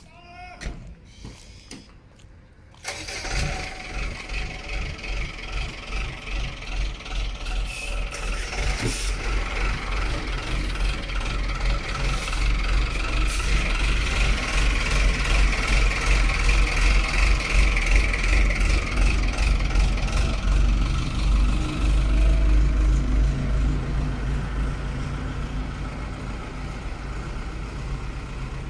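Skip loader garbage truck's engine starting about three seconds in, then running steadily while its hydraulic swing arms lift the skip.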